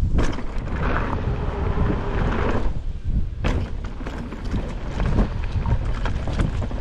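Mountain bike riding fast down a rough trail: wind buffeting the microphone over a low rumble of tyres on dirt and rocks, with constant small rattles from the bike and two sharp knocks, one right at the start and one about three and a half seconds in.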